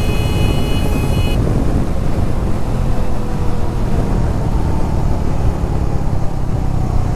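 Triumph Scrambler 400X's single-cylinder engine running at riding speed, its note sinking slowly, under a dense low rush of wind noise. A brief high steady tone sounds in the first second or so.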